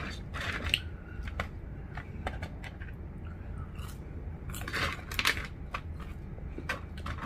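Close-miked chewing of curly fries: irregular sharp crunches and wet mouth clicks, thickest near the start and again about five seconds in.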